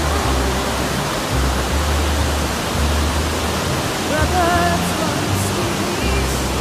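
Steady roar of a flood-swollen river churning through rapids, with music and a singing voice over it.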